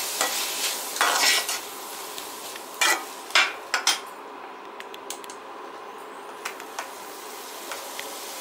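A perforated metal ladle scraping and clattering against a metal kadhai as chopped vegetables are stirred, several sharp scrapes in the first four seconds. After that the vegetables sizzle softly in the oil, with a few light ticks.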